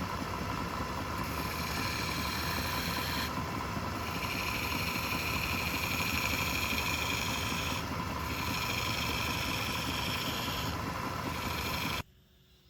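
Wood lathe running with a steady hum, while a turning tool cuts into the spinning wood in several passes of a few seconds each. The sound cuts off abruptly near the end.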